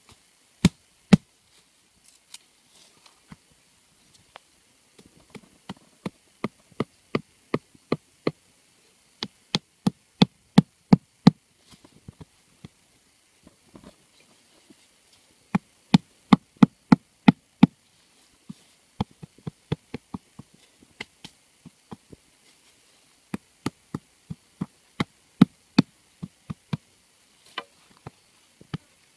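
A thin pipe knocking and tapping against hard-packed soil as it is worked into the side of a dug pit: sharp knocks in runs of several, about two or three a second, with short pauses between runs.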